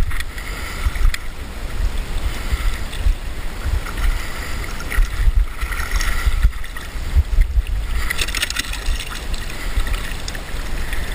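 River water flowing over a shallow stony bed, with wind buffeting the microphone in a low, uneven rumble.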